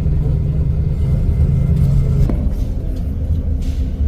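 Motor vehicle engine and road rumble, a steady low drone that shifts in pitch about two seconds in, with one sharp click at that moment.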